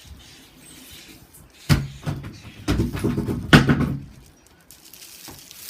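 Fishing rod packaging being pulled and handled: three loud scraping squeaks, about a second apart.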